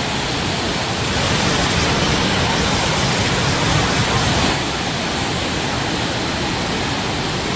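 Waterfall rushing: a loud, steady roar of falling water that drops slightly in level about halfway through.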